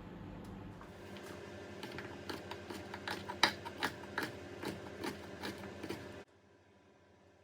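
A run of irregular sharp clicks and taps over a steady hum; the sound cuts off suddenly about six seconds in.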